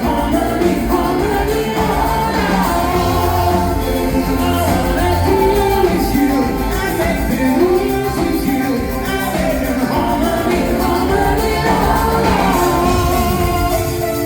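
Live synth-pop concert performance: a singer's vocal over the band's synthesizers and percussion, heard loud in the theatre hall.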